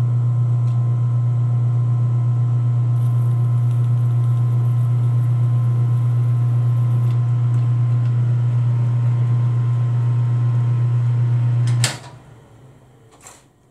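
Metal lathe running under power with the chuck spinning: a loud, steady low hum that stops abruptly about twelve seconds in.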